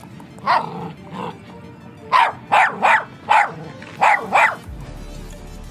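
A white spitz-type dog barking about eight times in short, sharp barks, most of them in a quick run through the middle, over faint background music.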